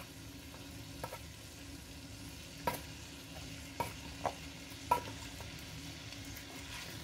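Pork mince frying in a pan with a faint steady sizzle, while drained sweet corn is tipped and scraped out of a tin can into it, giving about five short sharp clicks.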